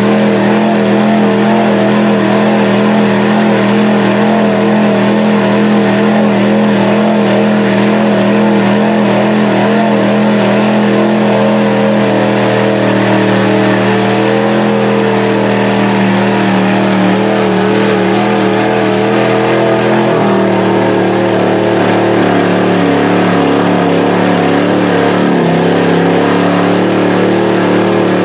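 Chevy mud truck's big-block V8 held at high revs, its tires spinning and slinging mud while the truck makes almost no headway. The engine note stays steady, easing down slightly about 20 seconds in and again near the end.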